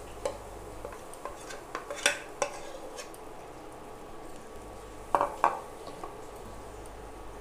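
A steel bowl and a metal spoon clink and scrape against a nonstick tawa while besan batter is poured and spread. The sharp clinks come in a run, loudest about two seconds in, with a close pair a little past five seconds.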